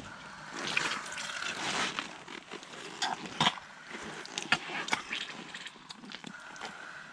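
Rubber boots stepping through deep, sticky wet clay mud: wet squelching and sucking as the boots sink in and pull free, with scattered clicks and short rubber squeaks.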